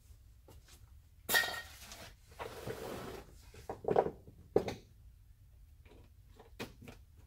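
Handling noise: several separate knocks and clatters. There is a loud clatter about a second in, a short scraping rustle, two sharp clanks around four seconds, and a smaller knock near the end.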